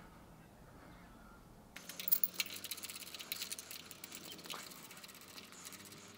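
Near silence for about two seconds, then a run of irregular light metallic clicks and taps as a steel bracket and bolt are handled and set onto the head of a tool and cutter grinder.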